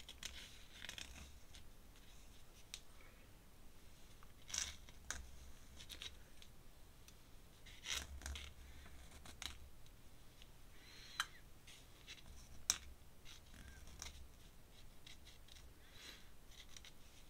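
Dip pen nib scratching across paper in short, faint ink strokes, with a couple of sharper clicks about two-thirds of the way in.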